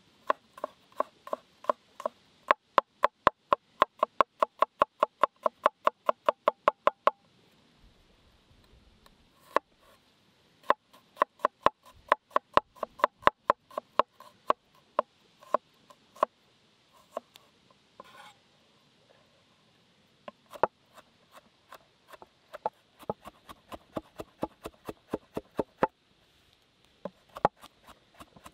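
Cleaver chopping garlic on a wooden cutting board: quick runs of knocks of the blade on the wood, about five a second, with short pauses between the runs.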